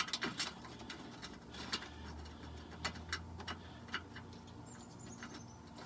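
Scattered light clicks and ticks as a bolt and washer are fitted and hand-threaded into a car's plastic underbody service panel, the sharpest click right at the start.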